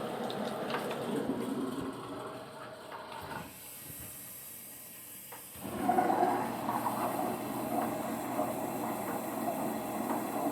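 Water rushing into a Blomberg WM77100 front-load washer through its inlet fill valves, a steady hiss. The flow sound drops away about three and a half seconds in and comes back louder about two seconds later.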